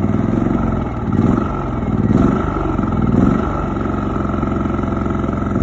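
WEN 56380i inverter generator's engine running just after its first-ever start, its sound swelling and easing about once a second as it settles.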